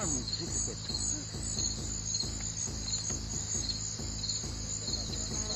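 Crickets or similar insects chirping in a steady, regular pulse, just under two chirps a second, over a low steady hum.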